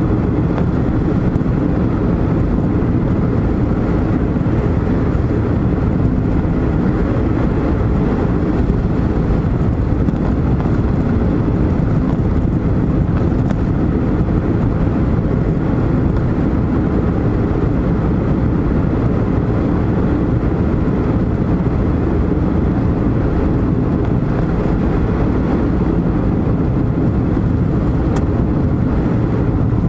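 Steady low rumble of tyre and engine noise heard from inside a moving car's cabin, even and unchanging throughout.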